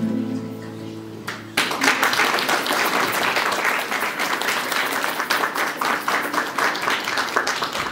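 The last chord of a song dies away, then about one and a half seconds in an audience breaks into steady applause.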